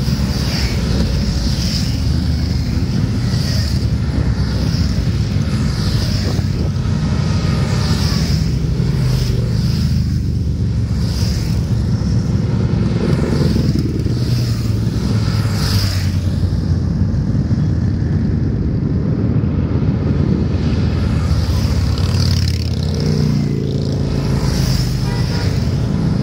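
A procession of motorcycles riding past one after another, each engine rising and fading as it goes by, in a steady stream of engine noise.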